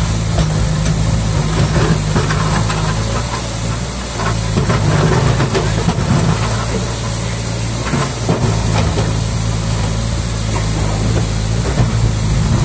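Liebherr R 924 tracked excavator's diesel engine running steadily under working load as it digs in the river, with the rush of fast-flowing water all around.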